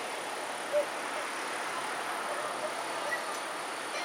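Steady outdoor night ambience: an even hiss with a thin, steady high-pitched drone, likely insects, and one short faint chirp about a second in. No firework bursts are heard.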